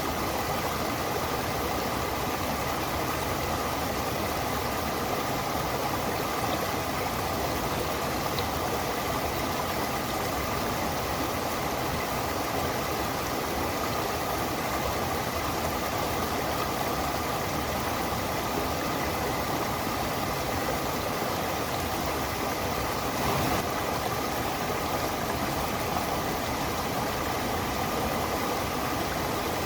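Stream and waterfall water running: a steady, even rush with no break.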